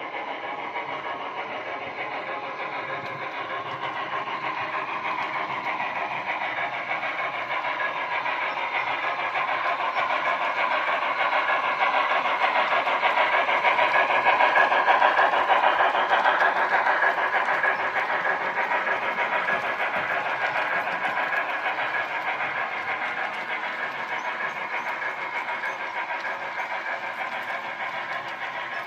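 Union Pacific 844's excursion train passing by, its steady rolling rail noise with ringing overtones building to a peak about halfway through and then fading away.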